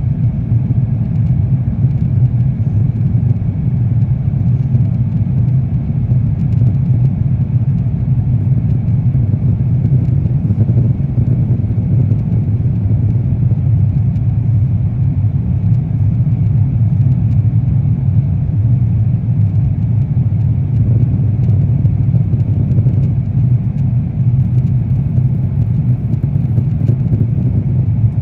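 Steady cabin rumble inside an Airbus A350-900 airliner during its climb, from the Rolls-Royce Trent XWB engines and the airflow over the fuselage. It is a low, even drone that does not change.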